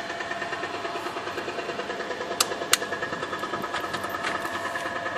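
Suzuki Bandit's inline-four engine idling steadily, with two sharp clicks about a third of a second apart near the middle.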